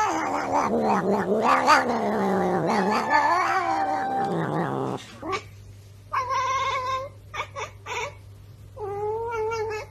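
A black cat gives one long, drawn-out meow for about five seconds, wavering up and down in pitch. It stops abruptly. A second cat then gives a few shorter meows and quick chirps.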